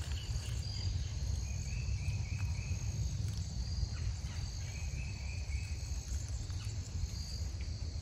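Insects trilling steadily in the woods, high and thin, with a few shorter trills in a lower pitch coming and going, over a steady low rumble.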